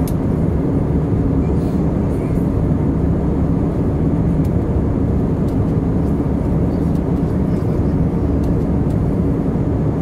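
Steady low rumble of engine and airflow noise inside the cabin of an Airbus A319 airliner in flight.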